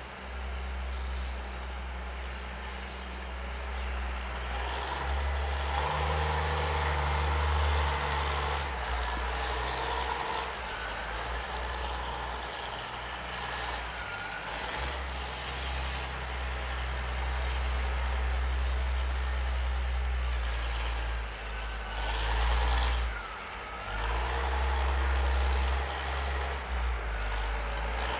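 City street traffic dominated by the low rumble of large vehicles such as trucks or buses. The rumble swells as vehicles pass, once about a quarter of the way in and again near the end, with a few brief squealing glides along the way.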